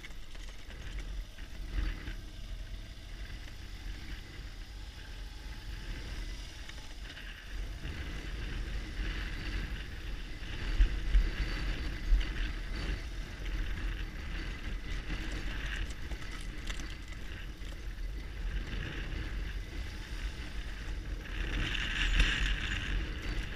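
BMW R1200GS Adventure flat-twin engine running at low speed while the motorcycle rides over a rough, rocky dirt track, with a steady low rumble and wind noise on the helmet microphone. There are a couple of sharp knocks a little before the middle.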